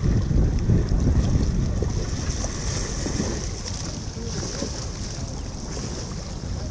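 Wind buffeting the microphone, heaviest in the first two seconds and then easing a little, over choppy water lapping against shore rocks.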